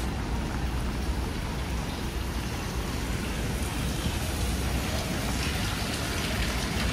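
Heavy rain falling steadily and hitting an umbrella overhead, over a constant low rumble.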